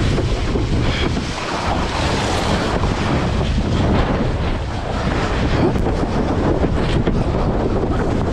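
Wind buffeting the microphone over the steady rush and slap of water past a windsurf board sailing at speed through chop.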